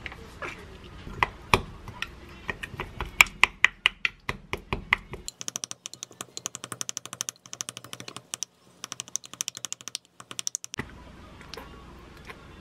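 Wooden spoon clicking and knocking against a glass mug while mashing two boiled eggs, in quick irregular taps. From about five seconds in the taps come faster and denser for about five seconds, then ease off.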